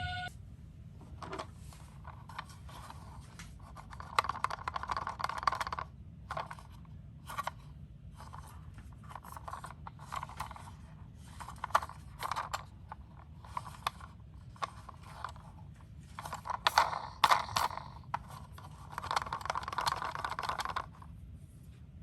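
Small toy cars rolling and scraping along cardboard in repeated short bursts, with light clicks and clatter; two longer runs come about four seconds in and near the end.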